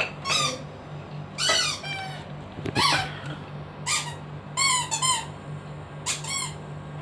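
Shih Tzu whining in about six short, high-pitched cries, some sliding downward, with a steady low hum underneath.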